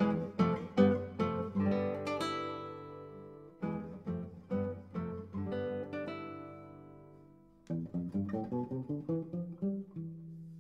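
Background music: solo acoustic guitar playing plucked phrases that pause briefly twice and end on a long ringing note.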